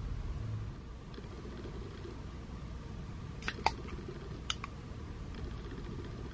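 Aluminium drink can being opened by its pull tab: two sharp clicks about three and a half seconds in, the second loudest, then two fainter clicks about a second later, over a low steady rumble.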